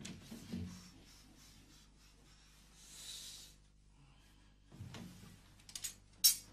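Soft rustling of clothing and movement, then near the end a few sharp clicks and a loud clack as the door of a front-loading washing machine is opened.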